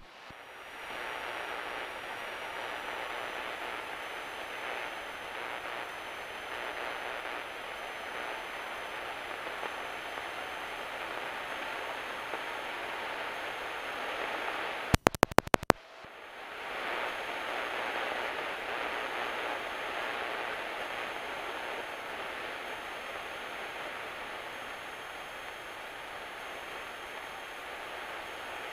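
Steady rushing cockpit noise of a Cessna 172 on final approach, with no clear engine drone, fading in during the first second. About halfway through comes a quick run of about six sharp clicks, after which the noise dips and swells back.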